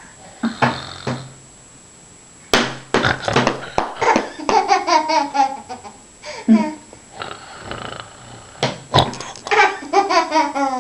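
A person laughing in several runs of quick, pitched 'ha-ha' pulses that fall in pitch, with a short noisy breath about a second in.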